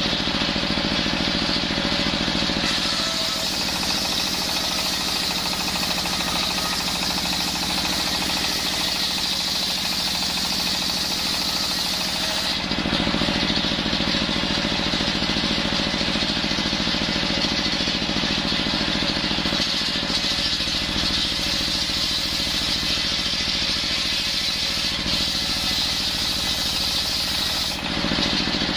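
Belt-driven circular saw bench running steadily while its blade rips coconut-wood planks lengthwise into rafter strips. The sound thins out a few seconds in, fills back in about twelve seconds in, and dips briefly near the end.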